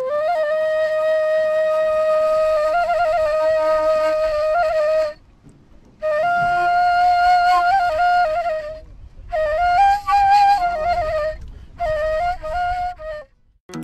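Reed flute playing a slow solo melody: a long held note that breaks into quick trills, then, after a short pause, two shorter phrases with ornamented turns and brief gaps between them.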